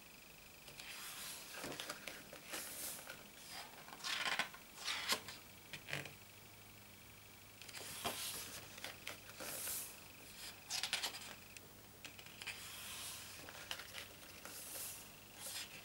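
Thick photobook pages being turned and smoothed flat by hand: paper swishing and rustling in several short bursts with brief pauses between.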